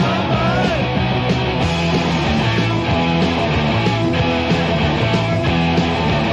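Rock music soundtrack, loud and continuous, with a repeating bass line.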